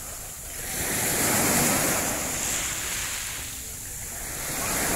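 Small waves breaking and washing up a shallow sandy, shell-strewn shore, the surf swelling about a second in and again near the end, with wind buffeting the microphone.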